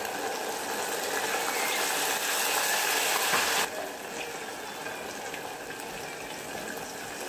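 Thin batter poured from a ladle in a stream into hot oil in a steel pot, the oil sizzling and bubbling hard as the batter fries into lacy ghevar. The sizzle is loudest for the first three and a half seconds, then drops abruptly and carries on more softly.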